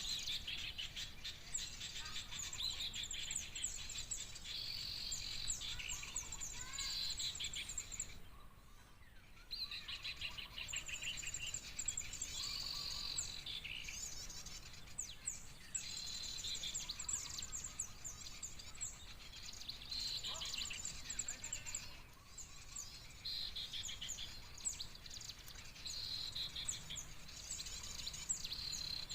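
Bird-trapping lure recording of a noisy flock of small birds mixed with sooty-headed bulbul calls, played back: dense, high, rapid chirping in repeating phrases, breaking off briefly about eight seconds in.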